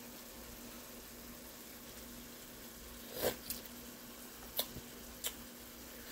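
A pot of broccoli soup simmering faintly on the stove with a low steady hum. About three seconds in comes a short slurp, then three quick lip smacks as the soup is tasted.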